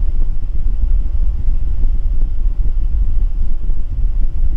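Pickup truck engine idling rough, a steady low rumble heard from inside the cab.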